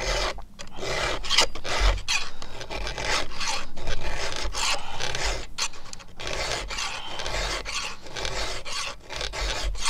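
Round file rasping across the steel cutter teeth of a Stihl MS661's 3/8 chainsaw chain in repeated strokes, each under a second, with short gaps between them. The file cuts on the forward stroke and is not dragged back.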